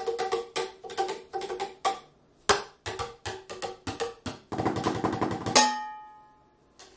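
Two halves of a plastic golf-club tube used as melodic drumsticks, struck in a quick rhythm and giving hollow, pitched tones, about five strikes a second. After a short pause and a few spaced hits comes a fast roll, ending in one hit that rings on and fades.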